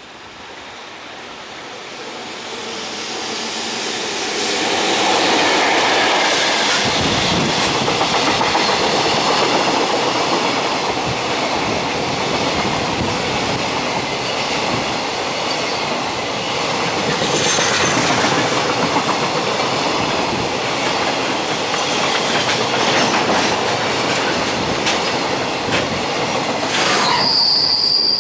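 Long container freight train hauled by an EF65 electric locomotive passing through a station: the sound grows louder over the first five seconds as the locomotive nears, then the wagons run past with their wheels clicking over the rail joints. A high, steady wheel squeal starts near the end.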